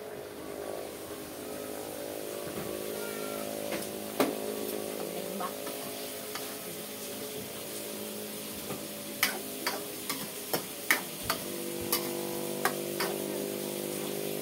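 A metal spoon stirring in a cooking pan, clinking sharply against it about eight times in quick succession in the second half, with a single click earlier. Underneath runs a steady low hum.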